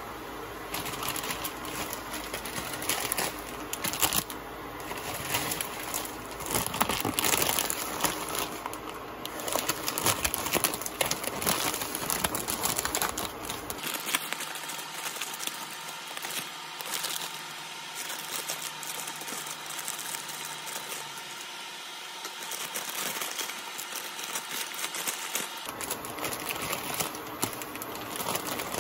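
Plastic instant-ramen packets crinkling and rustling as they are picked up and handled, in irregular crackling bursts.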